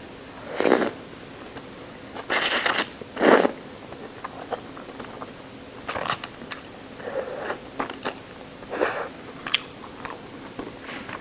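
Soft ramen noodles being slurped in three loud slurps over the first few seconds, then wet chewing with smaller, clicky mouth sounds.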